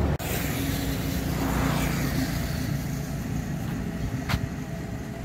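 Steady engine hum with a broad rushing swell about two seconds in, like a vehicle passing, and one short click near the end.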